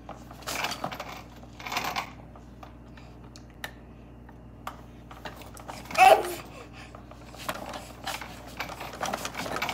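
Plastic toys on a baby walker's activity tray clicking and rattling as a baby handles them, in scattered short clicks. A baby's short vocal sounds come through as well, the loudest a brief pitched squeal about six seconds in.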